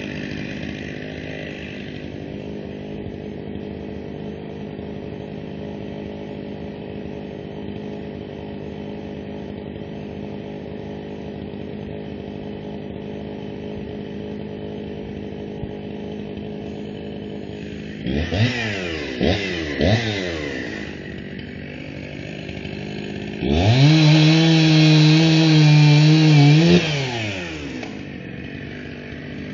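Two-stroke chainsaw idling, blipped up to high revs three times in quick succession, then held at full throttle for about three seconds before dropping back to idle.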